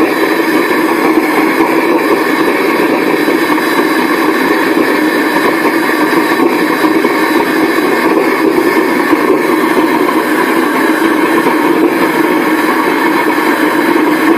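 Home-made vegetable-oil-fired furnace burner running at full blast: a loud, steady, jet-like roar of flame and forced air, sounding like a Concorde.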